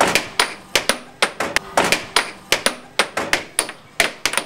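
Air hockey puck and mallets clacking: a fast, irregular run of sharp plastic knocks, about three or four a second, some coming in quick pairs.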